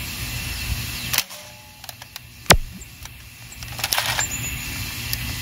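Adventure Force Thundershot hammer-action dart blaster fired: one sharp snap about halfway through, with a quieter click before it and a brief stretch of handling noise after it.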